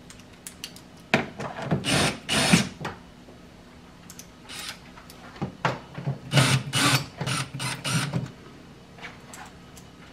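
Cordless power driver driving screws into the Tesla Model Y frunk, running in short bursts in two clusters: one a second or two in and another about halfway through.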